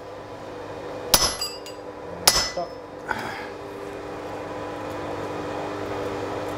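Two sharp hammer blows about a second apart on a handled punch driven into a red-hot steel bar on an anvil, each ringing briefly, then a lighter knock. A steady low hum follows.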